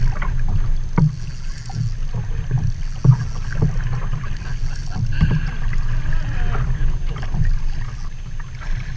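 Wind buffeting the microphone as a steady low rumble, with waves slapping against a plastic kayak hull and a few short knocks.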